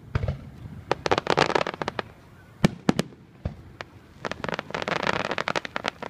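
Aerial fireworks bursting: single sharp bangs, with two spells of rapid crackling pops, one about a second in and a longer one about four seconds in.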